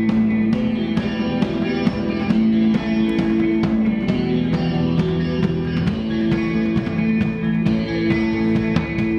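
Live instrumental rock band playing: electric guitars sustaining ringing notes over a drum kit keeping a steady beat.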